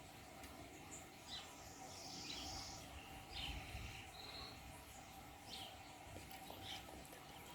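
Faint outdoor birds chirping: scattered short calls over low background noise, with no clear sound of the dog or cat.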